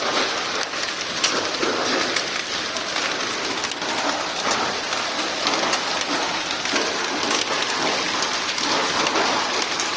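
Hail falling on a paved rooftop: a steady, dense patter like heavy rain, studded with sharp clicks of individual hailstones striking.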